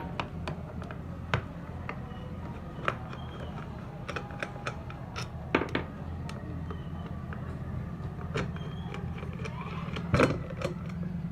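Ceiling fan housing bolts being undone with hand tools: scattered metal clicks and taps, with louder knocks about midway and near the end, over a steady low hum.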